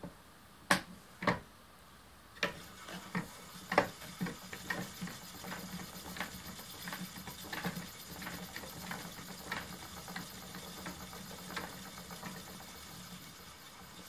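Wooden spinning wheel running as yarn is spun onto a core: two sharp knocks, then from about two seconds in a steady low whirring hum with frequent irregular light clicks.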